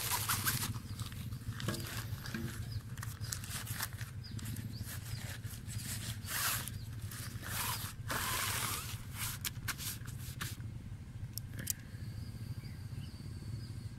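Nylon rod bag rustling and swishing in short bursts as it is handled, untied and a spinning rod is slid out of it, over a steady low hum.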